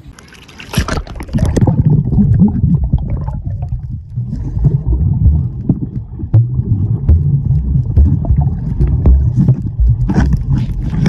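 Water heard by a camera underwater: a burst of splashing about a second in, then a dense, muffled low rumble and gurgle with scattered clicks.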